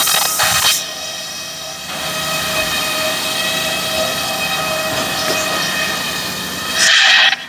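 Large circular saw on a breast bench sawing decking timber: a loud cut ends about a second in, then the blade spins free with a steady whine, and a second short cut near the end stops abruptly.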